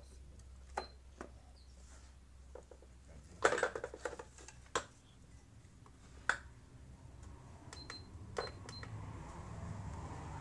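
Desk fan being handled and switched on: clicks and knocks, the loudest a cluster about three and a half seconds in, with short high beeps from the push-button control panel in its base, one early and a quick run of four about eight seconds in. Near the end the motor starts and the blades begin to whir, the air noise building, as the fan that would no longer turn spins again.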